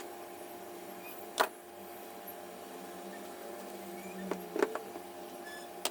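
A few light clicks and taps from handling the repaired charger cable and heat shrink tubing, over a steady hum.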